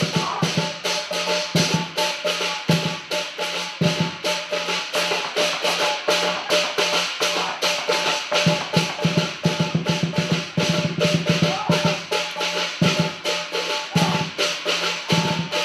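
Percussion-led music with fast, even drumbeats, about five strokes a second, accompanying a kung fu routine.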